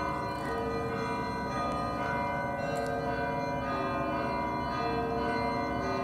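Russian Orthodox church bells ringing together: several bells of different pitches sounding at once, their tones ringing on and overlapping, with fresh strikes joining every second or so.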